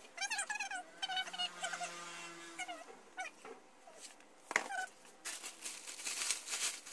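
A cat meowing several times, one meow drawn out for about a second, then plastic packaging rustling near the end as it is handled.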